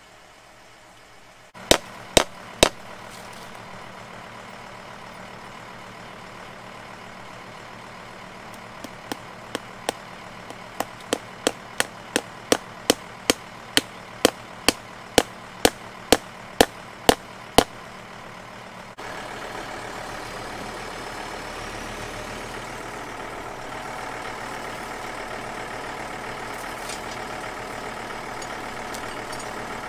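Hand-hammer blows at the base of a fence post: three quick strikes, then a steady run of about eighteen more, speeding up to about two a second. From a sudden change partway through, a John Deere loader tractor's engine idles steadily.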